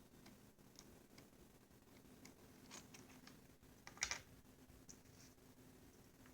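Faint, irregular clicks of keyboard key switches being pressed one at a time, with a louder clack about four seconds in.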